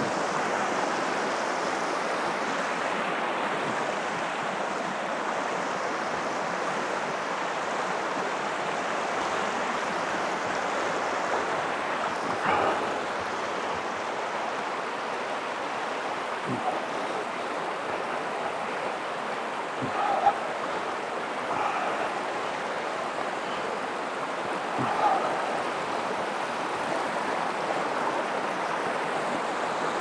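Fast-flowing stream rushing over stones and shingle in a steady, unbroken wash of water noise, the stream running full after heavy rain. A few brief faint sounds stand out over it about halfway through and later.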